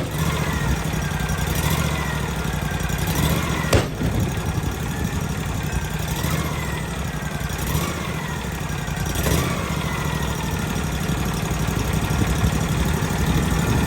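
Wood-Mizer LT40 sawmill's engine running steadily at idle, with short rising-and-falling whines recurring every second or two and a single sharp knock about four seconds in.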